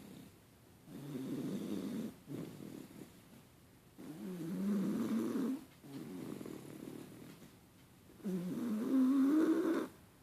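Snoring: three loud snores about every three and a half seconds, each lasting a second and a half or so with a wavering pitch that rises, and softer breaths between them.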